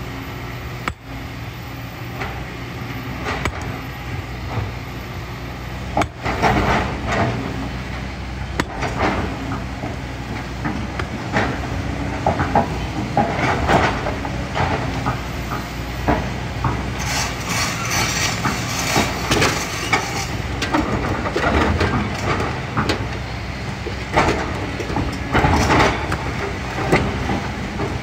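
Kobelco excavator's diesel engine running steadily while its bucket digs and scrapes through sand and gravel, with stones clattering and knocking repeatedly from about six seconds in.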